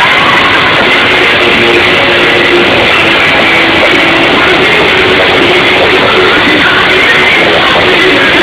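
Loud live gospel band music at a concert, heard from among the audience, running steadily without a break.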